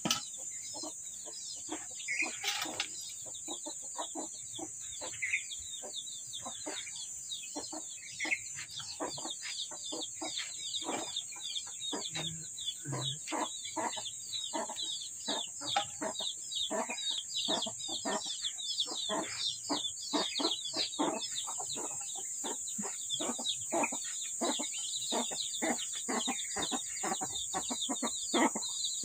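Chickens clucking and cheeping in a rapid stream of short, falling chirps that grows busier toward the end, over a steady high hiss.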